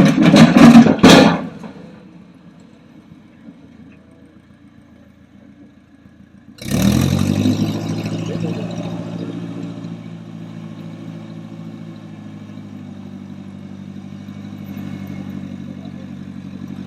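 A loud clatter in the first second or so. About two-thirds of the way in, an engine starts abruptly and settles into a steady idle.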